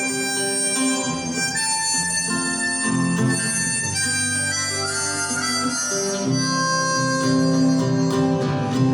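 Harmonica playing an instrumental melody of held notes over acoustic guitar accompaniment.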